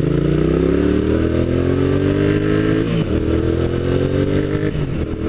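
2002 Suzuki SV650S's 90-degree V-twin with a modified exhaust accelerating hard. Its revs rise, fall sharply at an upshift about three seconds in, rise again, then fall at a second upshift near the end. The first shift is pretty clunky; the second is a nice, clean shift.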